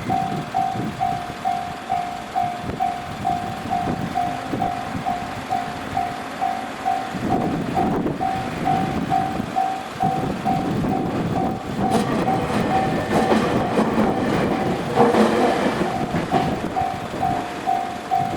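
Japanese level-crossing warning bell ringing steadily, about two dings a second. From about seven seconds in, a Nankai electric train runs over the crossing, its wheels rumbling and clattering, loudest around fifteen seconds in.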